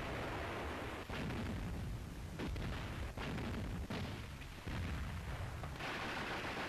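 Artillery and gun shots, about five heavy reports a second or so apart, each with a rumbling tail, on an old hissy film soundtrack. Near the end the shots give way to a steady hiss.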